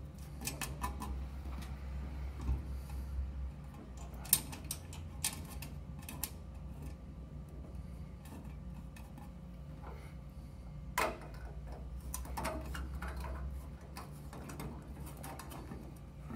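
Small metal screws being turned by hand into a gas cooktop burner's heat shield, with scattered light clicks and taps of metal parts. The sharpest clicks come about four and eleven seconds in, over a low steady hum.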